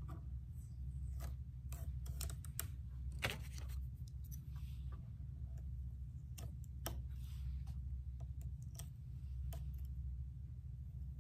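Irregular light clicks and ticks of a small pick and fingernails catching and peeling stencil off a painted wooden board, over a steady low hum.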